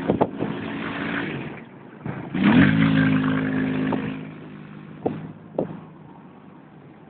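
Quad bike engine revving: it climbs sharply about two seconds in, holds a high steady note for a second or so with a hiss riding on it, then drops back to a lower, quieter running note. Two short knocks follow as it settles.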